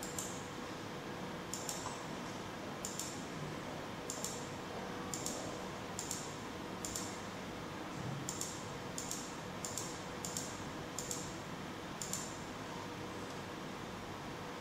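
Computer mouse button clicks while navigating a DVR settings menu: about a dozen and a half short, sharp clicks at irregular intervals, some in quick pairs, over a steady hiss.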